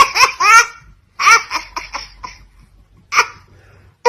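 Laughter sound effect: a high-pitched laugh in quick, rhythmic 'ha' pulses that stops just under a second in. A second laugh about a second in breaks up into fading, shorter pulses, and one short burst comes about three seconds in.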